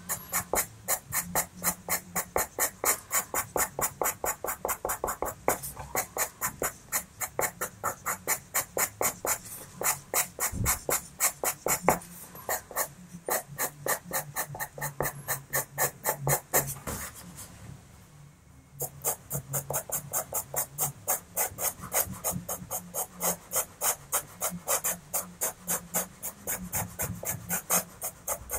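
A Faber-Castell Pitt pastel pencil scratching on pastel paper in quick, short, repeated strokes, about three or four a second, as fur hairs are flicked in. The strokes stop for about two seconds roughly two-thirds of the way through, then start again.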